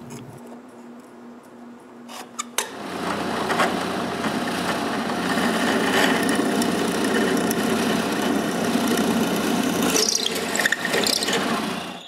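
Drill press boring a pivot hole into a thick wooden leg-vise chop. Fairly quiet for the first two or three seconds, then a steady grinding noise as the bit cuts into the wood, which lets up just before the end.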